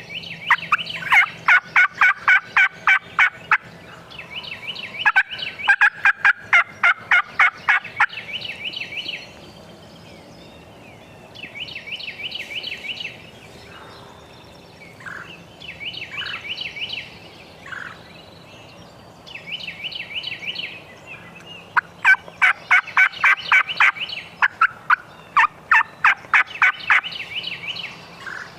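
Wild turkey gobbling: repeated bursts of rapid rattling calls. The loudest come in the first few seconds and again through the last third, with quieter bursts between.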